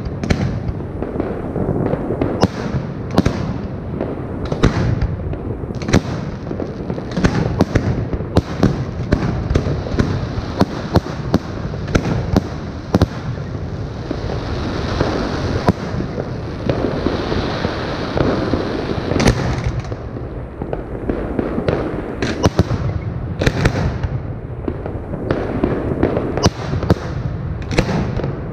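Aerial fireworks display: a rapid, irregular barrage of sharp bangs as shells burst overhead, over a continuous deep rumble. A higher hiss swells for a few seconds about halfway through.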